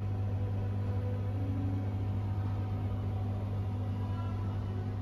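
Steady low electrical hum of a refrigerated ice-cream display freezer's compressor, one deep unchanging drone with fainter higher tones above it.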